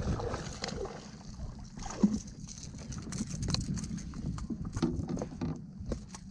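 Electric trolling motor running with a low steady hum, under a string of small clicks and knocks from a baitcasting reel and rod being handled.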